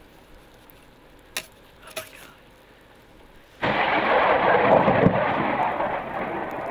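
Thunder from a severe thunderstorm: quiet at first, then about three and a half seconds in a sudden loud clap that keeps rumbling.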